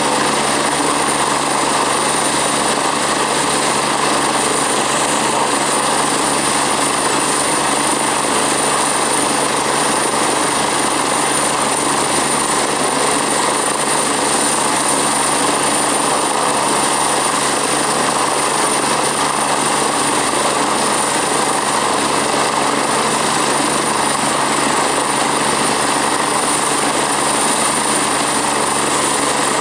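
MBB-BK117C2 (EC145) medical helicopter's twin turbine engines and main rotor running steadily on the ground, rotors turning, with a steady high turbine whine over the rotor and engine noise.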